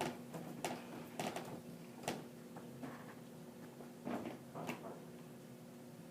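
A few faint, irregular footsteps and knocks over a low steady hum.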